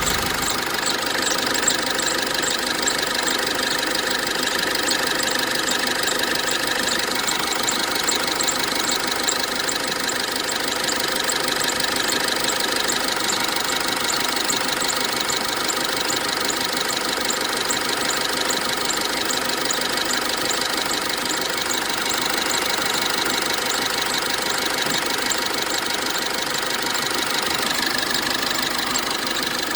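Cummins ISF 2.8 four-cylinder diesel of a GAZelle idling steadily, with the accessory drive belt squeaking and whistling over it.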